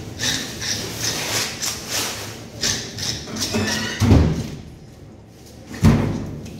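Knife scraping the scales off a large fish on a steel counter, quick rasping strokes about three a second, then two heavy thuds about four and six seconds in.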